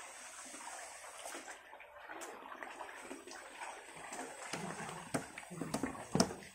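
Muddy water sloshing as men wade through a shallow, half-drained fish tank, dragging a seine net. Several sharp splashes come in the last two seconds as netted fish thrash at the surface; the loudest is near the end.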